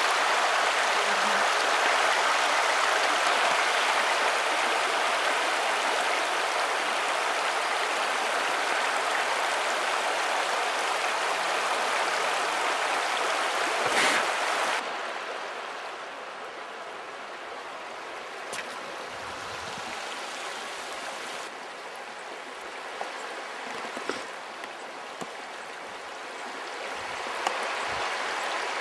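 Steady rush of a shallow river running fast over a stony riffle. Just before halfway it drops suddenly to a quieter flow, with a few faint clicks near the end.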